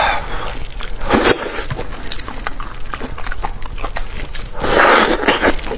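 Close-miked eating of a large fish head: wet smacking and sucking at the flesh and bones, with many small clicks and a longer, louder slurp near the end.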